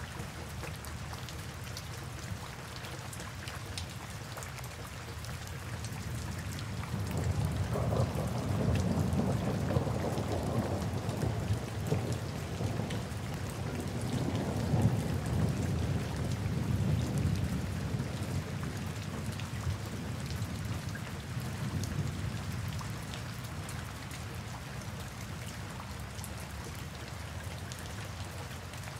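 Steady heavy rain pattering on surfaces, with a long low roll of thunder that builds about a quarter of the way in, rumbles for some ten seconds and fades away well before the end.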